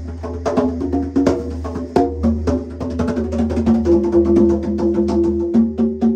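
Music: a rapid clicking beat like a wood block over a steady low bass note and a simple held melody that shifts pitch every second or so.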